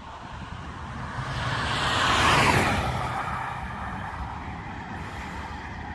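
A road vehicle passing close by, its tyre and engine noise swelling to a peak about two and a half seconds in, dropping in pitch as it goes, then fading.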